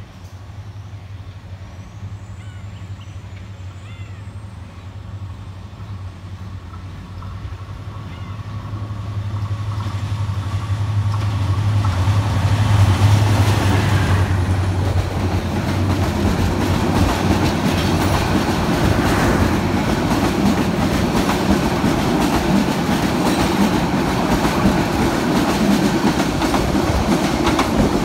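Diesel-hauled express passenger train passing through a station at speed: the locomotive's engine hum grows louder over about twelve seconds as it approaches, then a long rake of passenger coaches rolls past with a loud, steady rumble of wheels on the rails.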